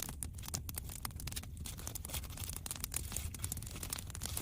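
Bacon grease sizzling in a cast iron skillet over hot coals, a steady dense crackle of small pops.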